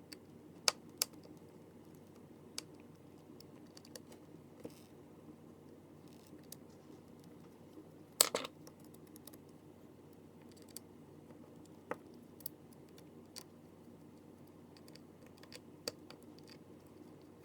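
Scattered small, sharp clicks and taps of a screwdriver and tiny screws being handled on a work surface while the back screws of a Samsung Galaxy S7 Edge are taken out, the loudest click about eight seconds in, over a faint steady hum.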